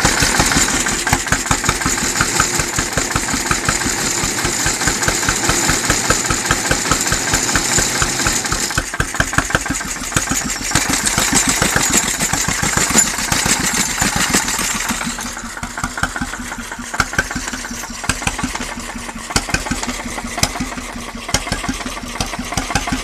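1933 Lidan 5 hp marine hot-bulb (semi-diesel) engine running steadily with an even, regular beat of firing strokes, a little quieter from about two-thirds of the way through.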